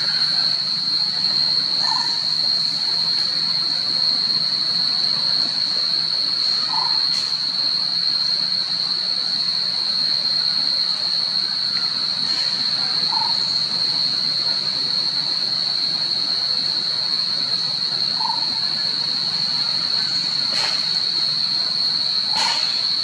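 Insect chorus in tropical forest: a steady high-pitched drone. A few faint short chirps come now and then, with an occasional light click.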